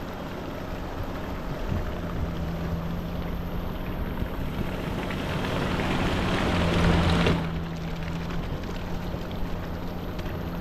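A vehicle's engine running steadily under a hiss of noise. About four seconds in, a rushing noise builds up, then cuts off suddenly about seven seconds in.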